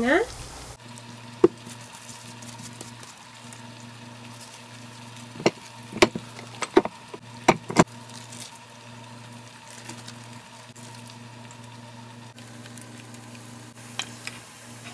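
Thattai discs sizzling as they deep-fry in hot oil in a kadai, over a steady low hum. A few sharp clicks, the loudest sounds here, come in the middle and once near the end.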